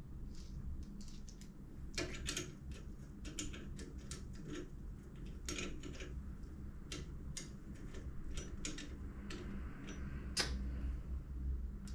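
Irregular light clicks and taps of gear and packaging being handled, with a sharper knock about ten seconds in, over a low steady hum.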